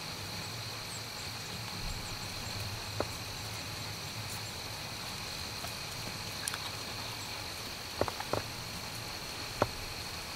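Steady high-pitched insect trilling over a low hum, with a few faint sharp ticks about three seconds in and again in the second half.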